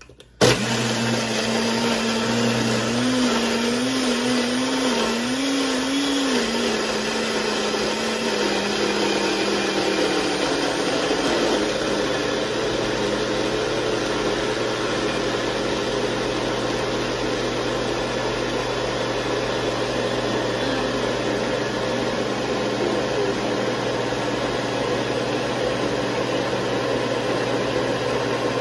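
NutriBullet personal blender running loud and steady as it blends an ice-filled protein shake. It starts abruptly, and the motor pitch wavers for the first several seconds before settling into an even run.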